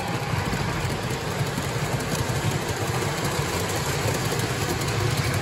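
Lionel model train freight cars rolling past on the track: a steady rumble and rattle of metal wheels on the rails.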